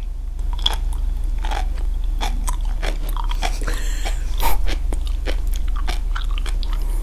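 Sea grapes (umibudo seaweed) chewed close to the microphone: many short, crisp crunching pops, one louder pop about four and a half seconds in, over a steady low hum.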